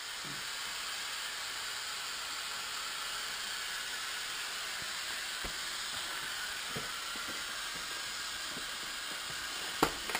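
Steady hiss of air flowing through a space suit's air supply, with a few faint ticks and one sharp knock near the end.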